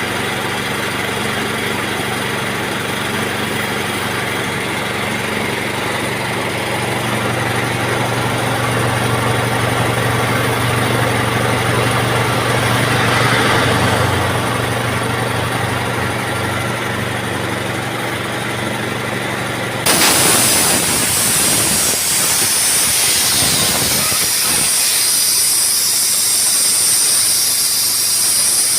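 A motor-driven machine runs steadily with a hum. About twenty seconds in, a loud rush of hissing air starts suddenly and carries on.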